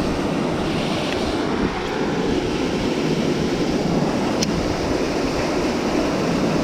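Strong wind blowing across the microphone: a steady, loud rush of wind noise, with one faint click about four and a half seconds in.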